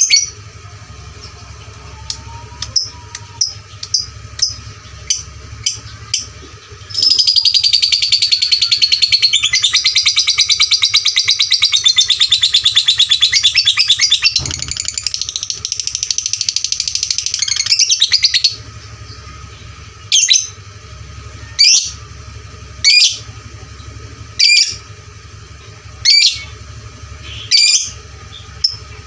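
Lovebird calling: a run of short, sharp chirps, then a long, rapid high-pitched chattering trill lasting about eleven seconds, then single sharp calls spaced about a second and a half apart. A steady low hum runs underneath.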